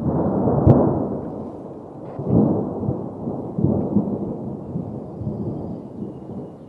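Thunder sound effect: a sudden rolling rumble with a sharp crack about a second in, then further rumbles that slowly die away.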